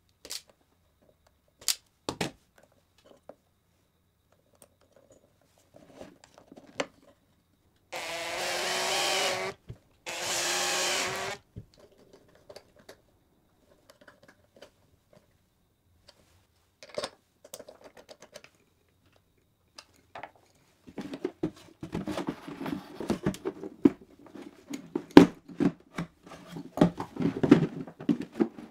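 An electric drill runs in two short bursts of about a second and a half each, around eight and ten seconds in. Near the end comes a longer stretch of irregular knocking and clattering of workpieces and tools being handled.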